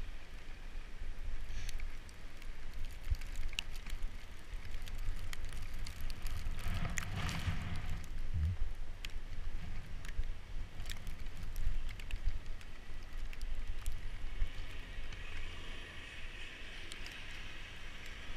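Bicycle riding through snow and slush: a steady low rumble of wind on the microphone under tyre and frame noise with many scattered clicks. A louder swell of traffic-like noise rises and fades about seven seconds in.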